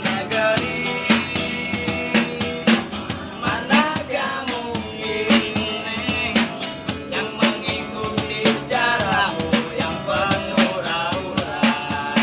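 Street busker's music: a singing voice with a wavering melody over a steady drum beat.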